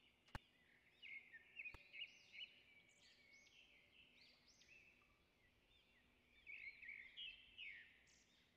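Faint chirping and twittering of birds in quick, repeated rising and falling calls, with two sharp clicks within the first two seconds.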